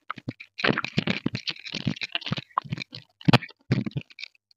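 Two children galloping in place barefoot on yoga mats: an irregular patter of foot thumps and shuffles.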